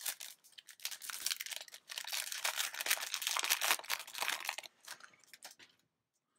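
Foil wrapper of a Yu-Gi-Oh! booster pack crinkling and tearing as it is opened by hand, a dense crackle that dies away near the end.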